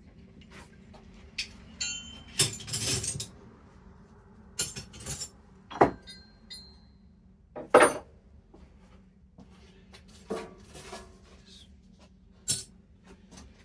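Loose metal hand tools clinking and knocking against each other as they are picked out of the tool chest and set down on the bench: a dozen or so irregular knocks, a few with a brief metallic ring.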